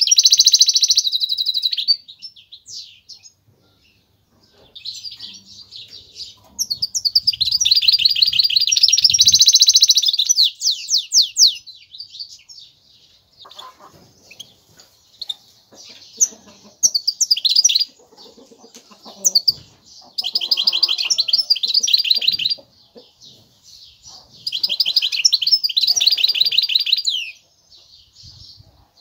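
Goldfinch × canary hybrid (mule) singing: several bursts of rapid, high twittering, each a few seconds long, with short pauses between.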